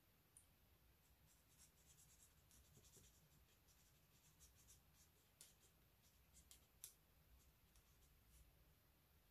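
Faint, irregular scratching of a Stampin' Blends alcohol marker's nib being worked over cardstock while colouring.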